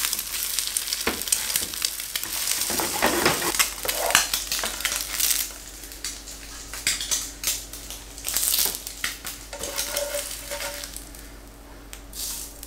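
Fried eggs sizzling and crackling in oil in a nonstick frying pan, with a spatula scraping under them. The sizzle falls off about halfway through, leaving scattered crackles and a few louder scrapes.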